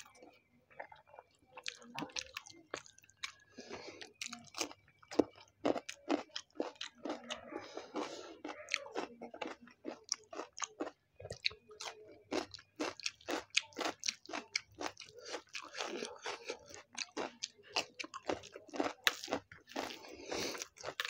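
A person chewing big mouthfuls of chicken biryani eaten by hand, with a rapid, continuous run of wet smacking clicks from the lips and mouth.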